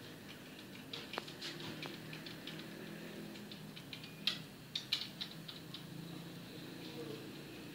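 Key presses on a compact wireless keyboard: a scatter of light clicks, with a few sharper ones about four to five seconds in, over a low steady hum.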